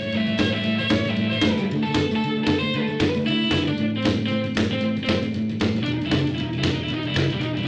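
Background music: guitar over a steady beat of about two hits a second.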